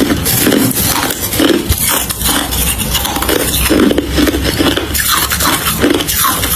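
Close-miked crunching of hard crushed ice being chewed, a dense crackle with repeated chewing strokes.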